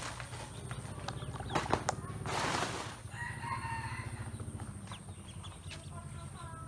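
Ducklings peeping as they paddle in a basin of water. About two seconds in comes a loud splashing flurry of under a second, a duckling flapping its wings in the water.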